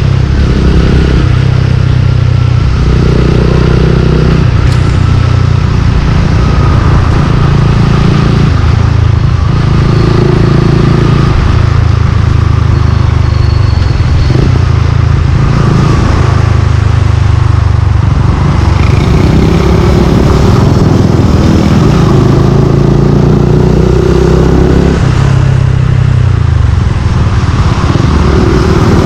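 Suzuki Gixxer 155's single-cylinder engine through an aftermarket exhaust, running loud as the bike is ridden, its note rising and falling with the throttle.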